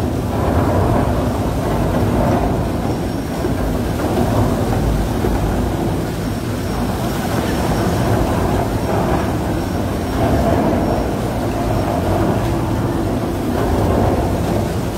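Tunnel boring machine's cutterhead turning and grinding through the last of the rock face as it breaks through into the shaft: a steady, heavy rumble.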